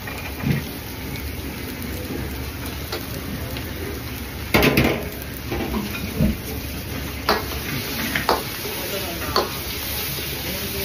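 Fried rice being stir-fried in a wok: a metal ladle scrapes and clanks against the wok over a steady sizzle. The loudest clatter comes about four and a half seconds in, and the clanks recur every second or so after it.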